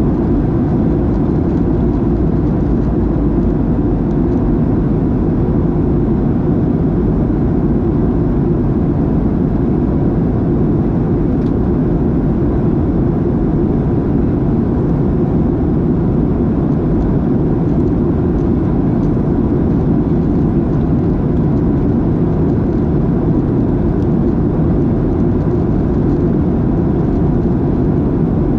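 Steady cabin noise inside a Boeing 737-700 in flight: an unbroken rush of airflow and CFM56-7B engine noise, heaviest in the low range, with a faint constant hum.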